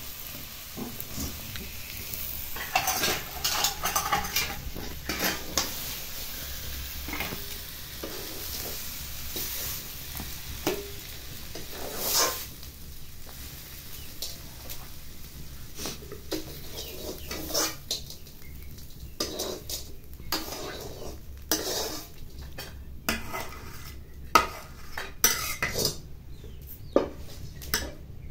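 A metal ladle scraping and knocking against a wok, in many separate scrapes and clinks, as cooked taro greens are scooped out into a steel bowl.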